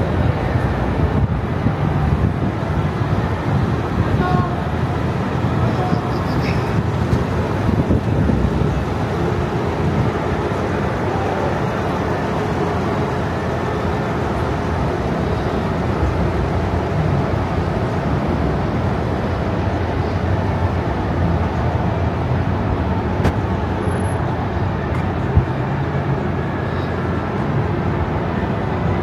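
Steady low background rumble of a busy public place, with indistinct voices of people nearby.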